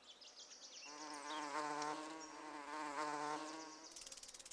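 Cartoon bee's wings buzzing in flight, a pitched hum that holds for about three seconds. Faint high chirps come before it, and a rapid, fine ticking starts near the end.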